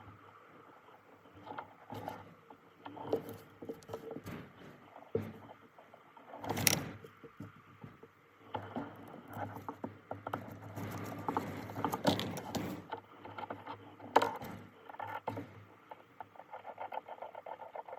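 Irregular clicking, knocking and scraping of something being handled, over a faint steady low hum.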